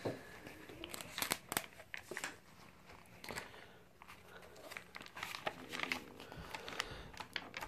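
Pages of a paper journal being turned and handled: soft rustling and crinkling, with scattered light clicks.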